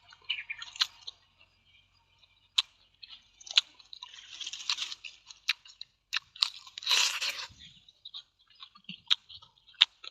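A person biting and chewing crunchy food close to the microphone: sharp crunches at irregular intervals, with a longer run of crunching about seven seconds in.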